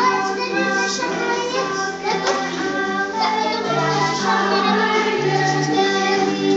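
A Czech children's song about witches sweeping, with a sung melody over instrumental backing and sustained bass notes.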